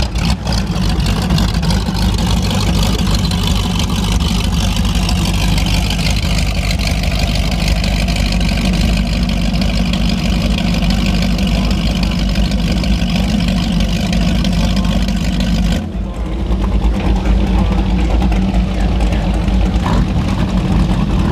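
Offshore performance powerboat engines idling, a steady low-pitched running sound, with a brief dip and a change in the sound about three-quarters of the way through.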